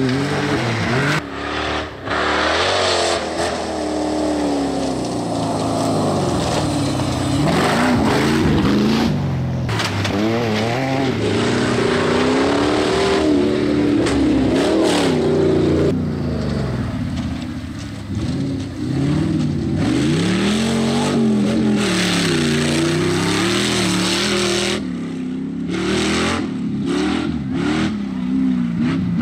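Off-road rally vehicles, a side-by-side buggy and 4x4 pickups, driven hard on a dirt track. Their engines rev up and down over and over as they accelerate and shift, one vehicle after another.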